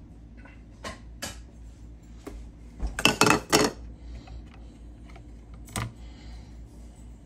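Kitchenware being handled: a few light clicks and taps, a quick run of clicks about three seconds in, and one more click near the end.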